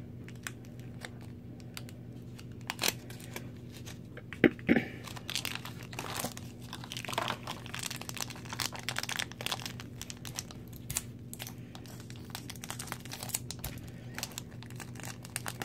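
Thin plastic wrapper crinkling and tearing as a toy figure is unwrapped by hand, dense crackling from about five seconds in. Before that come a few sharp plastic clicks as the figure is worked out of a small plastic toy crate.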